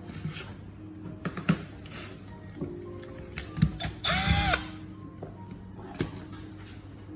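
Scattered clicks and knocks of metal parts being handled. About four seconds in, a power drill or driver spins briefly, for about half a second, its pitch rising, holding and dropping away.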